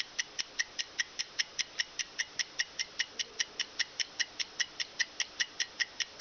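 Mechanical stopwatch ticking steadily at about five ticks a second: the clockwork that drives the rotating mechanism of the classic Star Trek communicator prop.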